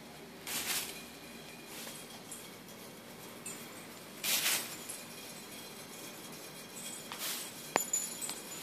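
A cloth ghost swung on a line by a spinning bicycle wheel, whooshing past three times, a few seconds apart. A couple of light clicks near the end.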